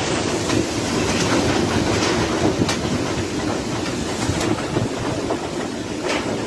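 Hurricane wind blowing hard through a roof torn open, a steady heavy rush with sharp knocks and rattles every second or two from loose corrugated metal roof sheets.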